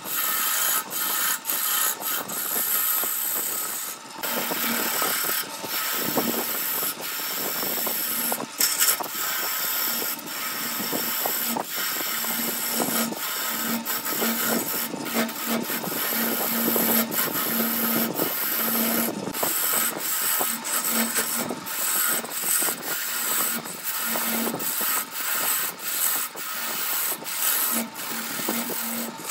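A turning chisel cutting into a wooden blank spinning on a wood lathe: a continuous scraping cut, broken by many short dips as the tool's pressure eases and bites again.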